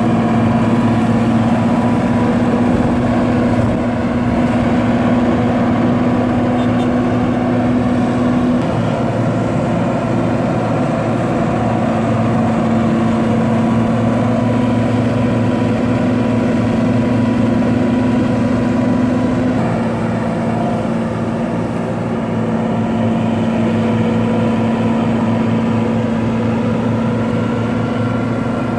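John Deere 2266 combine harvester's diesel engine running steadily, its hum dipping and rising slightly in pitch a few times, as the machine sits bogged in mud under tow.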